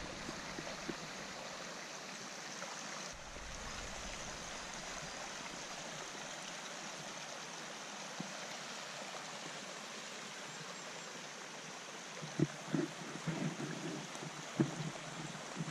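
Small woodland stream running over flat rock ledges, a steady rush of water. Near the end a few soft thumps and rustles come over it.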